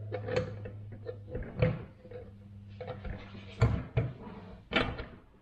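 Irregular metal clunks and knocks of a Toyota Tacoma 8-inch clamshell front differential's intermediate axle shaft being twisted and pushed down into the housing, its splines not yet lined up with the axle gear so it won't seat. A pair of louder knocks falls close together just past the middle, over a faint steady low hum.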